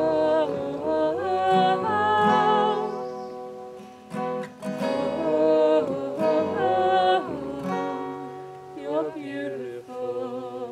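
Acoustic guitar strumming under voices holding long sung "oh" lines of a worship song. The last chord and note fade out at the very end.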